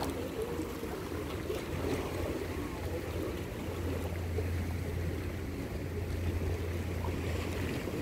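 A boat engine running as a steady low drone that strengthens for a few seconds midway, over a light hiss of wind and water.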